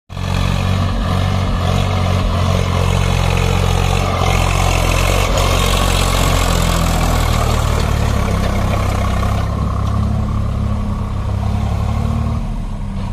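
Swaraj 744 FE tractor's three-cylinder diesel engine running under load as it pulls a trolley loaded with soil past. It is loudest about halfway through as the tractor goes by close, then grows fainter as it drives away.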